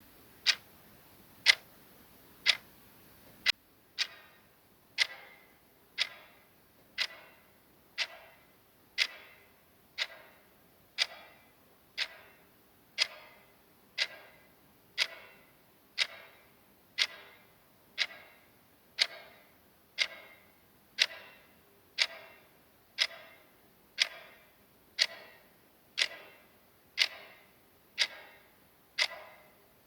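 Clock ticking sound effect, one tick each second. The first few ticks are sharp and dry, and from about four seconds in each tick carries a short ringing tail.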